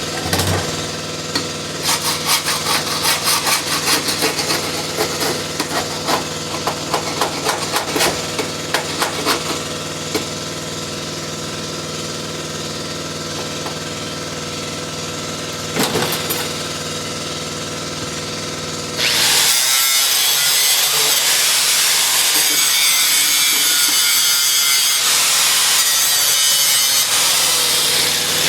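An engine-driven machine hums steadily, with irregular clattering knocks in the first third. About two-thirds of the way in, an air-powered tool starts on the Jeep's sheet metal with a loud, steady, grinding hiss.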